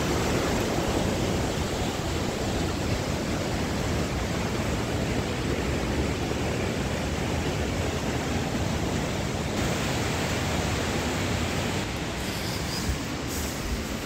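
Steady rushing noise of a fast, rocky mountain stream, with no break or rhythm in it.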